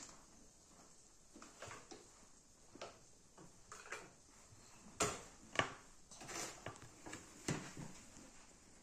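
Faint scattered clicks and knocks of small plastic toys and a plastic dropper being handled against a glass flask and a sand tray, with a few louder knocks past the middle.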